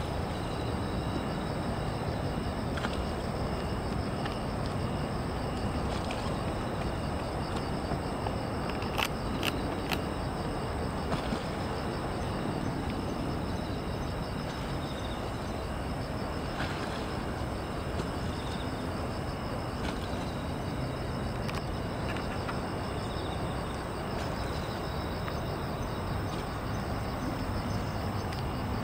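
Insects chirping in a fast, even pulse high above a steady low rumble of city traffic, with two short clicks about nine and ten seconds in.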